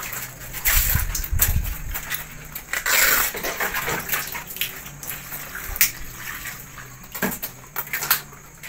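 Fresh banana leaves being handled and torn: a run of crackling rustles and sharp rips, with one longer, louder rustle about three seconds in.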